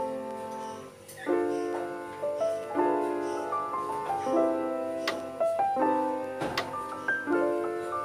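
Background piano music: slow sustained chords, changing about every one and a half seconds.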